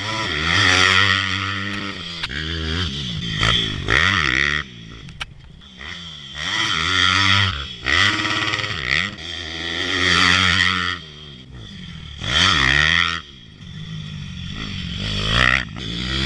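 Pit bikes' single-cylinder four-stroke engines (190 Daytona and 150 Tokawa) revving hard on a dirt track, the pitch climbing through the gears and dropping as the throttle is chopped, over and over as the bikes pass and jump.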